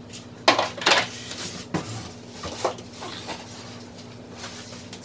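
Folded Uppababy Vista stroller frame, aluminium with plastic joints, clanking and clicking as it is lifted out of its cardboard box and handled. There are several sharp knocks in the first three seconds, then a few quieter clicks.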